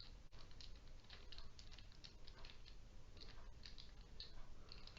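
Faint, quick plastic clicking of a 3x3 Rubik's Cube as its faces are turned through an algorithm, with many small irregular ticks.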